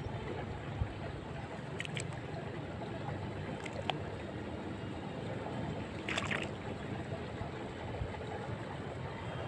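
Faint steady outdoor background noise, with a few soft clicks and a brief rustle about six seconds in.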